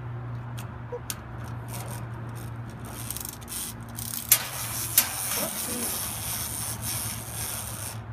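Plastic wind-up toy chicken being handled and wound by hand: a dry rasping sound from about three seconds in, with two sharp clicks about a second apart, over a steady low hum.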